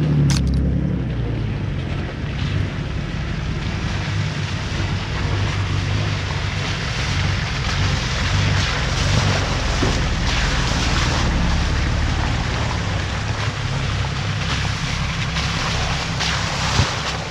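Four-wheel drive's engine running steadily under a rushing hiss that swells and fades a few times, with a sharp click just after the start.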